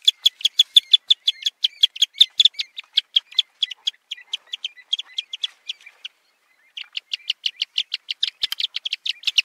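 Shorebird calling in a fast, steady series of short notes, about five a second, with one brief pause about six seconds in.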